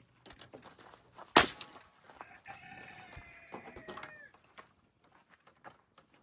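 A pneumatic nail gun fires once, a single sharp crack about a second and a half in, driving a nail into pallet wood. Right after it a rooster crows for about two seconds.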